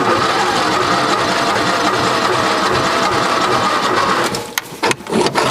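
ATV's electric starter cranking the engine in a fast, even whir. It starts suddenly and stops after about four seconds, on a battery the rider says is dying.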